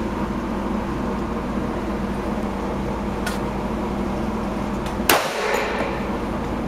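HK USP .45 pistol firing a single loud shot about five seconds in, with a short echo off the range walls, over a steady low ventilation hum; a much fainter crack comes about three seconds in.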